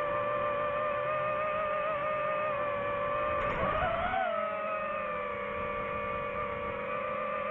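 Quadcopter drone's propellers whining at a steady pitch, which rises briefly and falls back about four seconds in as the throttle changes.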